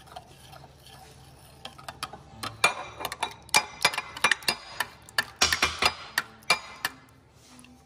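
A spoon clinking and scraping against the sides of a glass Pyrex measuring cup while stirring a seasoning sauce: a run of sharp, irregular clicks, several a second, from about two seconds in until near the end.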